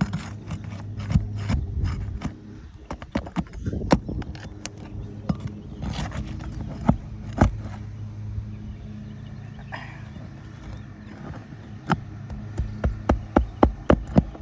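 Asphalt shingles being pried loose and unsealed with a shingle-removal pry tool: scattered sharp clicks, knocks and scrapes of metal on shingles and nails, over a steady low hum. Near the end comes a quick run of knocks, about four a second.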